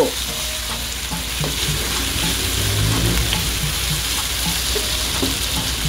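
Pork belly pieces sizzling with garlic and onion in a nonstick pan while a wooden spatula stirs and scrapes them, with small irregular knocks of the spatula against the pan. This is the sauté stage, the meat being seared with the aromatics before the braising liquid goes in.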